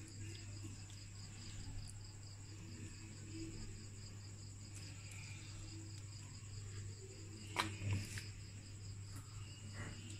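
Insects chirping steadily with a fast pulsing trill over a low steady hum; a metal spoon clicks twice about eight seconds in while spreading the filling.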